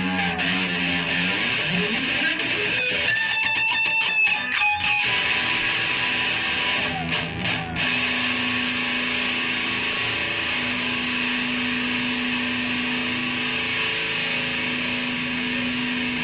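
Distorted electric guitar through an amplifier letting notes ring and hold, with a sliding pitch about a second in and a flurry of fast picked strokes around three to five seconds in, then long sustained notes.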